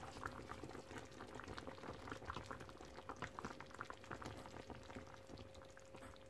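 Pork and chicken adobo in coconut-milk sauce simmering in a pan, bubbling faintly with many small irregular pops, while a wooden spatula stirs it; the dish is cooked through. A faint steady hum runs underneath.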